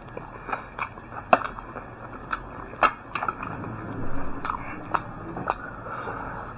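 A person chewing and biting food close to the microphone, with a few sharp crunchy clicks scattered through and a louder wet chewing stretch a little past the middle.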